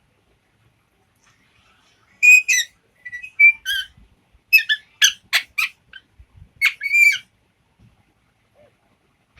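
Pet parrot whistling on command: a string of about ten short, high-pitched whistles and squawks, starting about two seconds in and lasting some five seconds.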